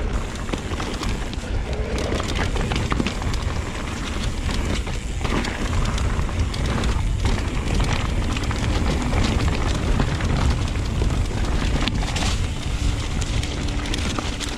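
Wind buffeting the camera's microphone as an electric mountain bike rolls fast down a loose, stony gravel track, with tyre crunch and the bike rattling over broken stone.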